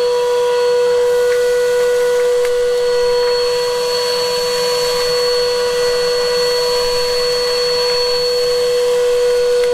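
Henry cylinder vacuum cleaner running with a steady motor whine over a rush of air as it sucks dust off an old stone wall.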